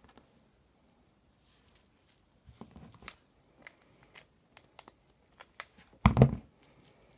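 Light rustling and scattered small clicks from handling the wadding and a hot glue gun, then one loud thump about six seconds in as the glue gun is set down close to the microphone.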